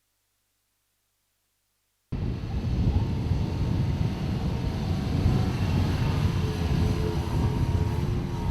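Silence, then about two seconds in a sudden start of loud, rumbling wind buffeting on the microphone, with a vehicle engine running underneath and its pitch wavering.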